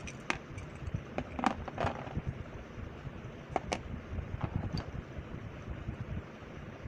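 Several sharp clicks and light clatter as a Cosmic Pegasus Beyblade's metal wheel and plastic clear wheel are pried apart and handled, over a low rumble of handling on the microphone.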